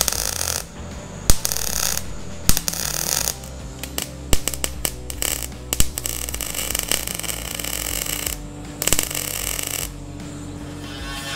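MIG welder crackling in a run of short bursts as steel repair strips are stitch-welded into a car's tail light panel. The bursts are separated by brief pauses and sharp clicks. Music starts to come in near the end.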